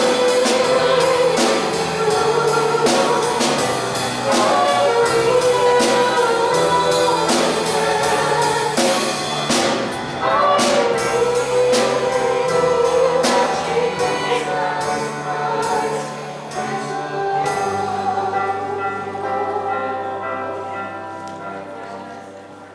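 Live worship band playing a song: a singer over drum kit, guitar and keyboard, with regular drum hits. About 17 seconds in the drums stop on a final held chord, which fades away near the end.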